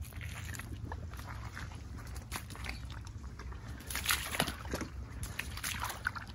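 Irregular sloshing, squelching and rustling of someone walking through wet marsh mud and vegetation, over a steady low rumble.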